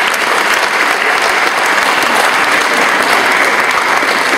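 A packed audience applauding steadily.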